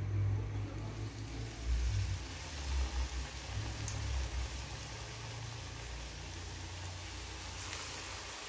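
Milagu vadai (urad dal and black pepper fritter) deep-frying in hot oil: a steady sizzle that starts about half a second in as the batter goes into the oil, with a low rumble under it through the first few seconds.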